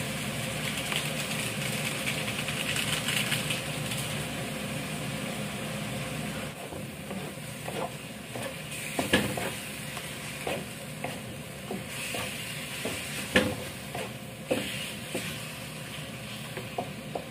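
Diced pork frying in a pan, sizzling steadily. About six and a half seconds in the sizzle eases, and a spatula stirring the meat knocks and scrapes against the pan a number of times.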